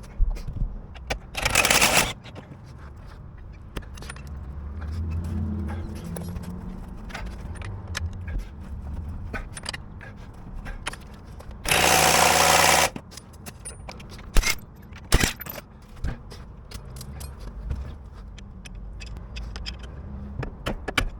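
Car repair work on the front axle: tools and metal parts clinking, knocking and scraping, with two loud rushing bursts about a second long, one near the start and one about twelve seconds in.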